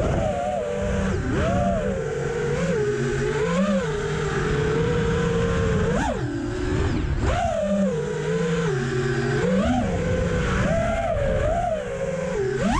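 Diatone GT R548 4S FPV quadcopter's Mamba 2207 2650 kV brushless motors and propellers whining, the pitch wavering up and down constantly with the throttle, with sharp swoops about six seconds in and again at the end.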